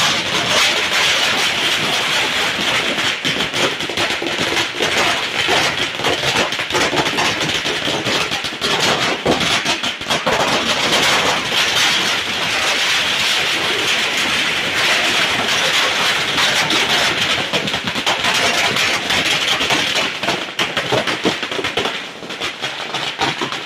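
A long firecracker string (a wala of thousands of small crackers joined in a line) going off, its bangs coming so fast that they merge into one continuous, loud crackle. It thins briefly near the end.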